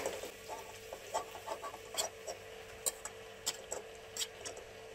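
Metal spatula scraping cooked rice out of a stainless steel pan into a steel pot: a run of light, irregular clinks and taps of metal on metal over a faint steady hum.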